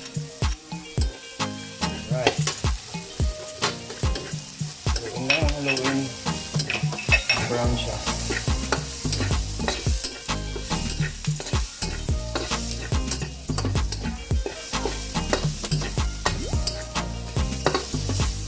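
Garlic and onion sizzling in hot oil in a frying pan, stirred with a utensil that clicks and scrapes against the pan many times.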